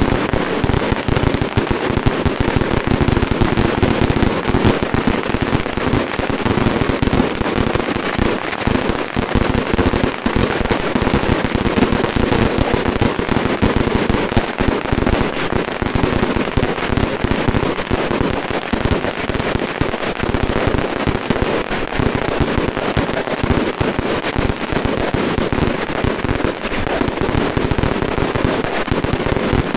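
Strings of firecrackers going off in a dense, unbroken crackle of rapid bangs that stays equally loud throughout.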